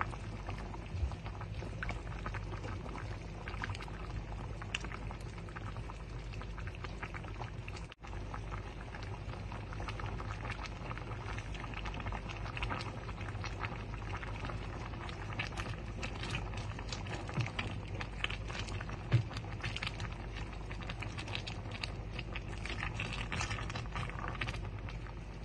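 Broth with pork and vegetables simmering in a large pot, bubbling and crackling steadily, with a silicone spoon stirring through it now and then. The sound drops out for an instant about eight seconds in.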